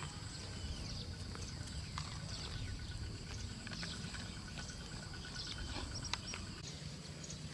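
Outdoor ambience: steady high buzzing with a fast run of short chirps through the middle, over a low rumble, with scattered light clicks.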